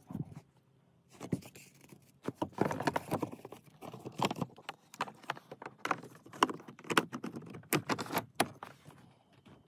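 Pleated cabin air filter and its plastic housing being handled: irregular rustling, scraping and light plastic clicks as the filter is worked into place, starting about a second in.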